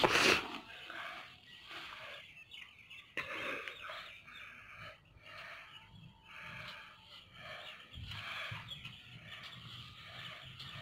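Birds chirping, with a short, loud rustle right at the start.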